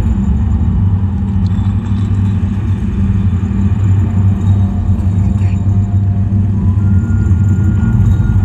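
A loud, steady deep rumbling drone from an outdoor show's sound system, with faint musical tones coming in near the end.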